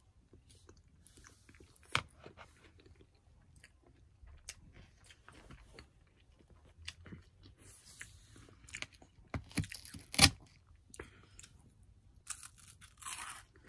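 A person eating from a metal spoon: chewing and mouth sounds with scattered sharp clicks, the loudest about two and ten seconds in.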